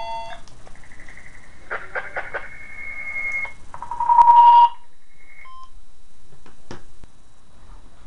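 Zartek ZA650 wireless intercom handsets sounding electronic tones and beeps. A steady high tone lasts about three seconds; about four seconds in comes a louder, lower beep lasting nearly a second, then two short beeps and a few plastic clicks of button presses.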